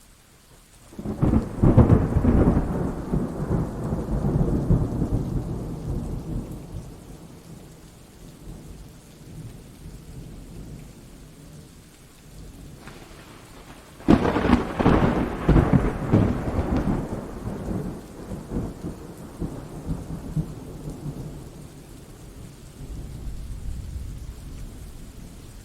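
Thunderstorm: steady rain with two long rolls of thunder. The first builds about a second in and fades over several seconds. The second starts with a sharp crack about halfway through and rumbles away slowly, with a weaker swell near the end.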